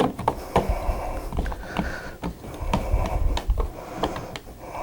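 Scattered light clicks and taps of a plastic wall plate being tried over two Decora wall switches, with low handling rumble underneath.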